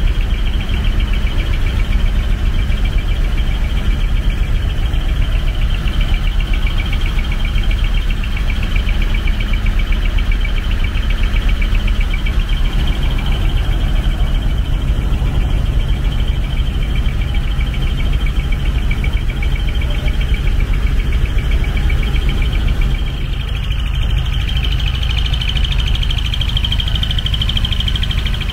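Truck engines idling: a steady low rumble with a fine rapid clatter higher up.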